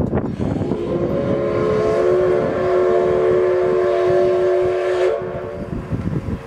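Steam whistle of the C62 2 steam locomotive sounding one long blast of about five seconds, swelling in at the start and cutting off cleanly. Wind rumble on the microphone underneath.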